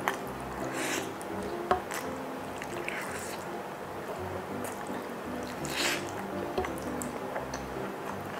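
Wet slurping and chewing of black-bean-sauce instant noodles, a few slurps with the loudest about six seconds in, over background music.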